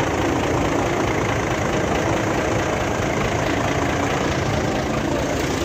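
Nissan FE6 inline-six diesel truck engine idling steadily, heard from underneath near its crankcase breather pipe. The engine has heavy blow-by ('back compression'), pushing smoke and oil out of the breather.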